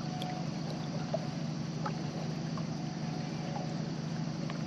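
A steady low hum under an even rushing hiss, with a few faint light clicks as fishing line is worked free from a snag.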